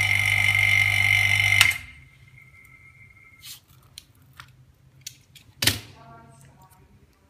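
A bench machine's electric motor hums steadily with a high whine, then switches off with a click a little under two seconds in. After it come small scattered clicks and taps of handwork, with one louder click later on.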